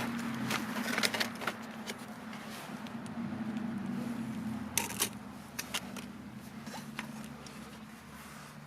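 Scattered clicks and light rustling of things being handled, over a steady low hum.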